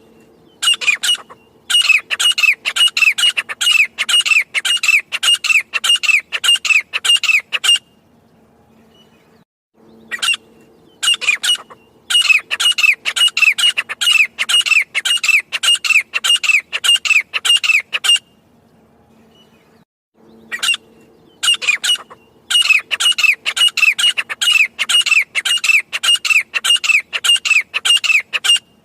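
Grey francolin calling in three bouts of loud, quickly repeated high notes. Each bout opens with a few spaced notes, then runs about six seconds at roughly two notes a second before a short pause. A faint low hum sits under the calls.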